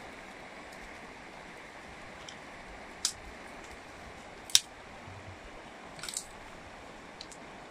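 Three sharp snaps of twigs and branches being broken by hand, about a second and a half apart, the middle one loudest, over the steady rush of a river.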